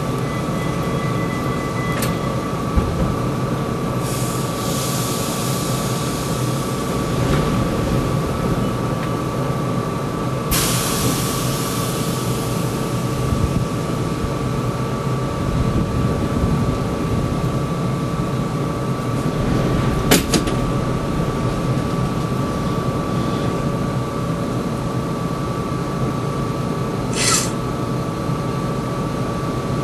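Tram running on rails: a steady rumble with a constant whine. A burst of hiss starts about ten seconds in and fades, a sharp double click comes about twenty seconds in, and a short hiss comes near the end.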